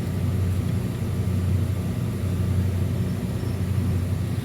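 Steady low machinery hum from nearby running equipment, even throughout with no starts or stops.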